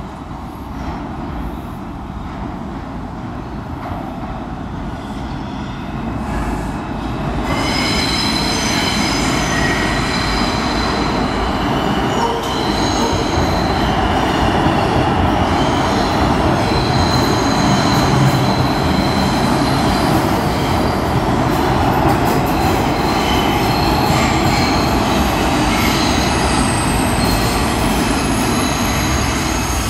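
Bombardier R142 subway train pulling into the station, its rumble building from about seven seconds in. From then on a high-pitched squealing runs steadily as the cars round the curved track along the platform and slow down.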